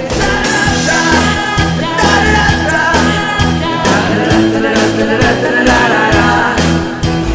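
A band playing upbeat music, with a steady drum beat and a singer.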